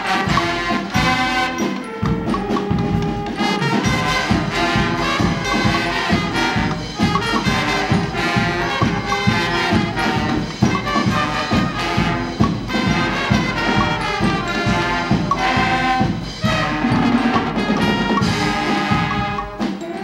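Guggenmusik carnival band playing live: loud brass and saxophones over a steady drum beat, with a bell lyre.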